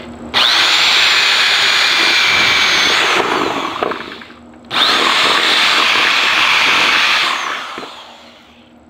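Electric drill running in two bursts of about three seconds each, its bit boring a hole through the shell of an old helmet.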